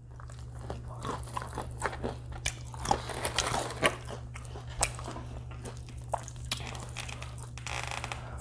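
A person biting and chewing crispy fried chicken close to the microphone: a run of crunches and mouth clicks, busiest in the first half.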